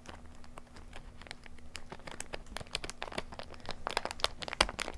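Foil wrapper of a Naruto card game booster pack crinkling and crackling as it is torn open by hand, the crackles growing denser and louder near the end.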